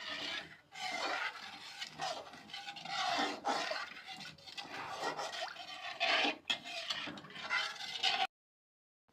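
Stirring and scraping in a kadhai of cooking kadha spice mix, in uneven strokes, cutting off abruptly near the end.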